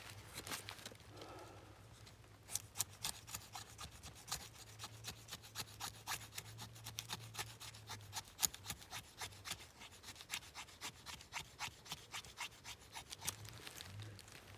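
Hand tool rasping on wood in quick, even strokes, about four a second, beginning about two seconds in.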